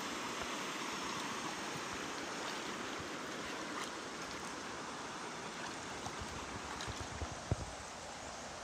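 Shallow stream water running over and around rocks, a steady rushing. A few soft thumps come near the end.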